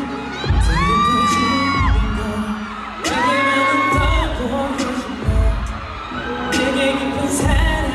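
Background pop music: a heavy bass beat under long held sung notes.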